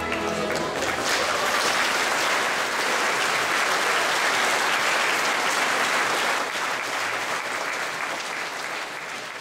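Audience applauding, loud and even. The last note of the fiddle-and-accordion folk band dies away in the first half-second, and the clapping thins out over the last few seconds.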